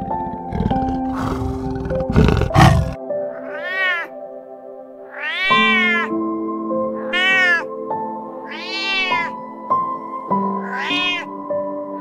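A domestic cat meowing five times, about every one and a half to two seconds, each meow rising then falling in pitch, over soft background music with long held tones. Low, rough growls fill the first three seconds before the meowing begins.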